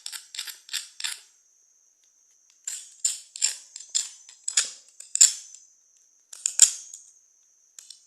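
Cuttlebone being scraped into powder: quick rasping strokes, about two or three a second, pausing for a second or so twice.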